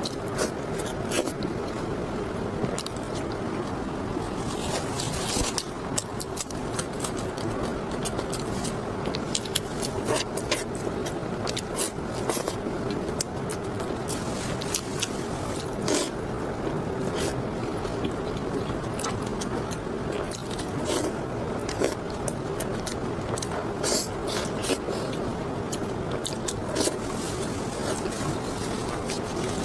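Close-miked eating sounds: chewing and mouth noises with many short, sharp clicks.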